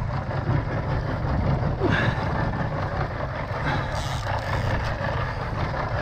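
Steady rumble of a boat under way at trolling speed: the engine running, with water rushing along the hull and wake.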